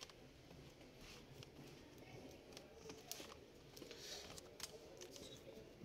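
Near silence with faint scattered clicks and small scrapes of a thin metal tool and fingers working at the DC power jack cable inside an opened laptop.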